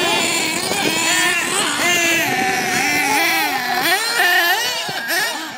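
Several small nitro RC car engines racing, high-pitched and revving up and down with the throttle, their pitches overlapping.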